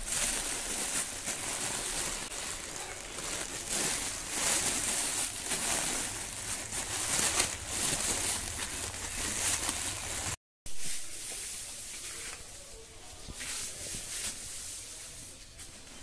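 Polythene bag crinkling and rustling in irregular handfuls as the mouth of a straw-packed substrate bag is gathered and twisted by hand. It breaks off briefly about ten seconds in and is quieter afterwards.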